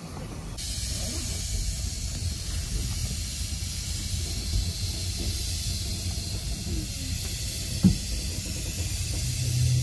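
Steady hiss of steam from a 15-inch-gauge steam locomotive, heard from inside a carriage over a low rumble. The hiss starts abruptly about half a second in, and there is one short knock near the end.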